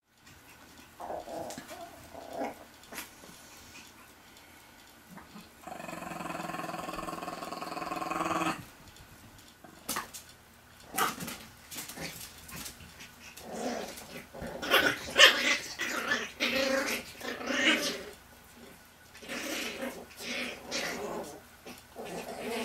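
Eight-week-old Chihuahua puppies play-fighting, giving short bursts of growls and yips, with one long drawn-out call of about three seconds about six seconds in. The busiest and loudest stretch comes in the second half.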